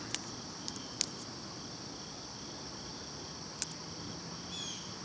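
Steady high-pitched chorus of insects droning, with a few sharp clicks in the first seconds and short falling chirps near the end.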